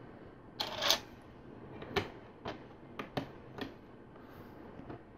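Loose plastic LEGO pieces being handled and sorted: a brief rustling clatter about a second in, then a handful of light, separate plastic clicks.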